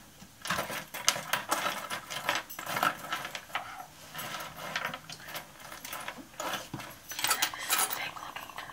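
Lumps of solidified lead, cast by pouring it into water, clinking and scraping against each other and a wooden tabletop as a hand pushes them around, in many short irregular clicks.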